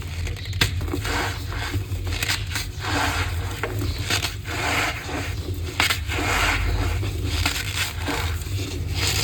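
Blocks of gym chalk being crushed and crumbled, a run of irregular crunches and crackles coming about every half second, with a few sharp snaps.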